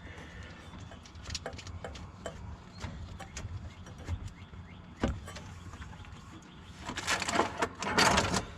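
Hand tools and metal parts clicking and knocking during work on an engine, with a louder stretch of rapid clicking near the end.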